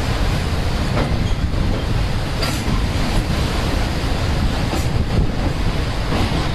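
Train running, a steady low rumble with occasional faint clicks of the wheels on the rails.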